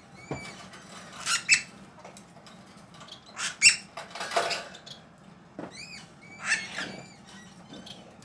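Small pet birds chirping and squeaking in short, high calls, scattered irregularly, some in quick pairs.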